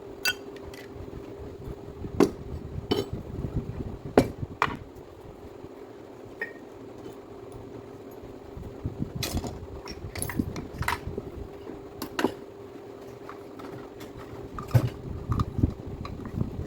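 Irregular clinks and knocks of hand tools and small metal parts being handled, over a faint steady hum.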